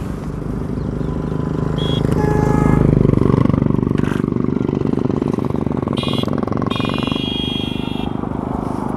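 Motorcycle engine running while riding along a road, with wind and road noise; it swells about three seconds in and eases off. Short high-pitched tones sound twice in the second half.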